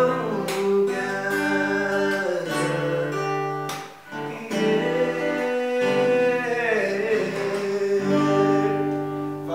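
A man singing a slow song over an acoustic guitar, the sound dipping briefly about four seconds in before the voice and guitar come back.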